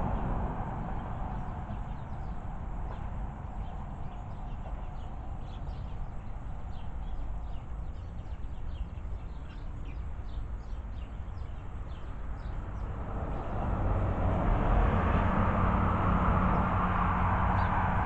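Faint, quick chirps of small birds over a steady outdoor background of street traffic. About three-quarters of the way in, the traffic swells into a louder rush with a low engine hum.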